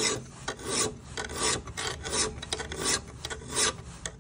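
Nicholson flat file stroked by hand across the teeth of a metal PURE juicer cutter held in a vise, re-sharpening the cutting corners: a steady run of rasping file strokes, about one and a half a second.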